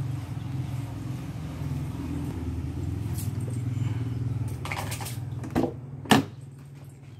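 BMW E34 M5 rear door handle pulled and the latch releasing: two sharp clicks, the second the loudest, over a steady low hum that drops away just after.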